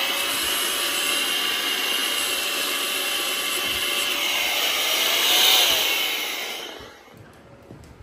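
Small cordless handheld electric blower running at full speed, a steady rushing whine, aimed into a ceiling smoke detector to clear leftover smoke from it before the alarm system is reset. It gets a little louder a couple of seconds before it is switched off, then winds down about seven seconds in.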